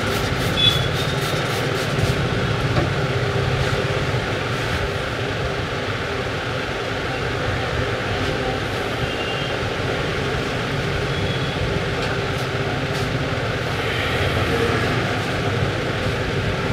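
Steady rumbling background noise, with a quick run of faint clicks about half a second in.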